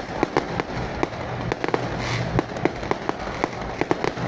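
Fireworks and firecrackers going off in an irregular string of sharp cracks, about four a second, over a continuous crackling background.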